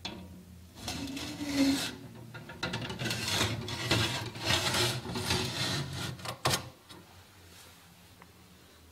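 Glass door of a wooden display cabinet being pushed and slid by hand, with a run of rubbing and scraping for about six seconds. A sharp click comes near the end of it.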